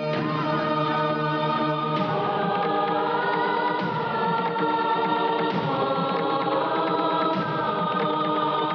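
Film background music of a choir singing long held notes.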